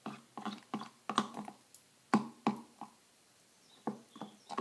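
A stick stirring a thick mix of Suave Kids 3-in-1 and hand soap in a small plastic cup: a quick run of short sticky clicks and squelches, pausing about three seconds in and starting again near the end.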